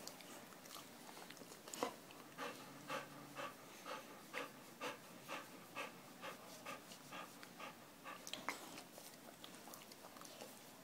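Dog panting in quick, even breaths, about two a second, for several seconds, with a sharp click about two seconds in.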